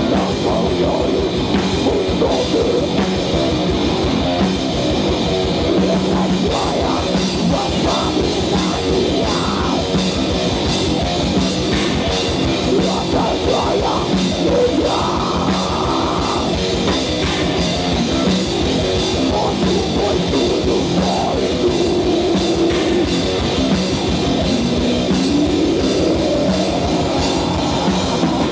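Heavy metal band playing live: fast, dense drum-kit playing under electric guitars, with a female vocalist singing into the microphone. A rising vocal or lead line comes near the end.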